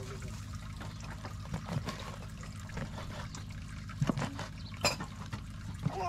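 Kitchen knife cutting through liver onto a wooden board, with a few sharp taps of the blade on the board about four, five and six seconds in, over a steady background hiss.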